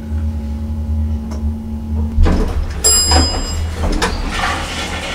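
Elevator cabin hum, then the elevator doors sliding open about two seconds in with a rumbling rattle that runs on to the end.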